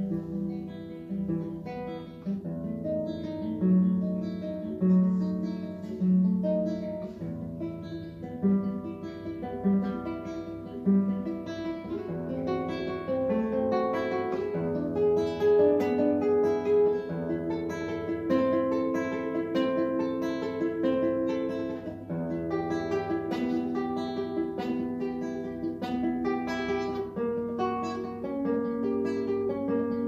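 Solo classical guitar played fingerstyle: an étude of quick, continuous plucked notes over ringing bass notes.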